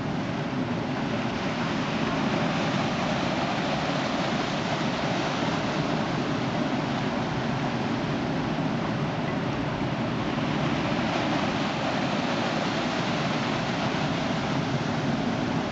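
Waves breaking on a beach: a steady, even rush of surf.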